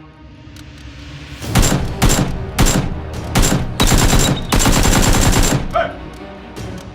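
Gunfire: a few single shots about half a second apart, then a rapid automatic burst lasting nearly two seconds.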